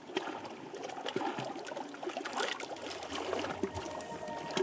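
Water trickling and gurgling, as of a small mountain stream, with a busy bubbling texture and no music over it.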